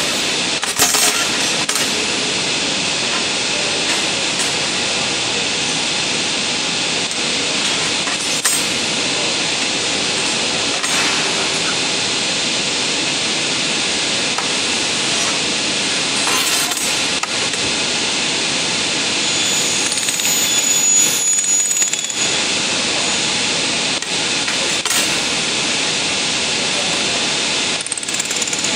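Steady loud hiss of laser welding machinery running, with a few short sharp clicks scattered through it.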